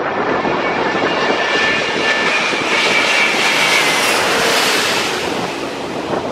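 Airbus A330-900neo airliner's Rolls-Royce Trent 7000 turbofans passing low overhead on landing approach: a loud jet rush with a high fan whine. It swells to its loudest about three to four seconds in as the aircraft goes directly overhead, then fades as it moves away toward the runway.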